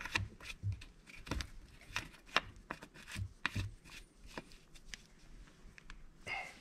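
Filler cap being set on and screwed down by hand on a Husqvarna 272XP chainsaw's tank: a run of faint, irregular clicks and rubs.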